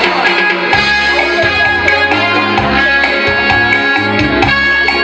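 Electronic keyboard playing the cheerful instrumental introduction of a song, with held chords over a moving bass line and a steady beat.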